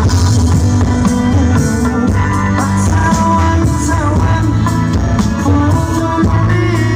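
Live band playing through a loud stage PA during a soundcheck: a male singer on microphone over drums, guitar, keyboard and saxophone, with a heavy, steady bass.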